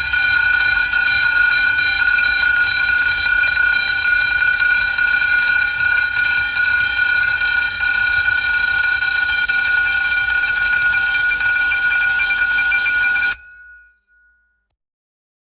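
Vintage alarm sounding one loud, steady, high ringing tone with no rise or fall in pitch. It cuts off abruptly about thirteen seconds in and rings briefly away.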